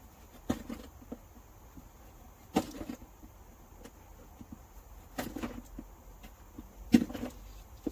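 A few separate knocks and clinks of hand tools and metal engine parts being handled, the loudest about seven seconds in.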